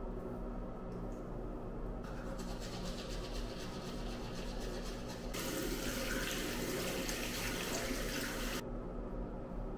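Bathroom sink tap turned on about five seconds in, running water for about three seconds and then shut off sharply. Before it, teeth being brushed with a toothbrush, rapid scrubbing strokes. A steady low hum runs underneath.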